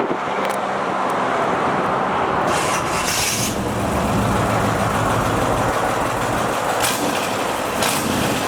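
Corvette Stingray's V8 engine running through newly installed side exhaust pipes, a steady, fairly loud exhaust note.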